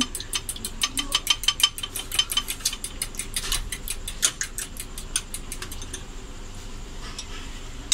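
Fork whisking a raw egg in a small glass bowl, the tines clicking rapidly against the glass, several strikes a second, for about six seconds before the beating stops.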